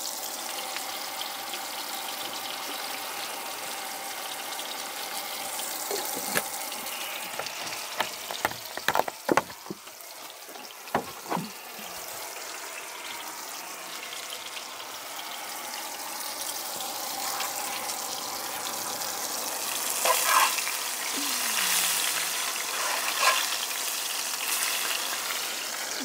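Cod fillets frying in olive oil in a cast iron skillet: a steady sizzle. A few sharp clicks and knocks come about a third of the way through, and the sizzle swells louder about three quarters of the way through.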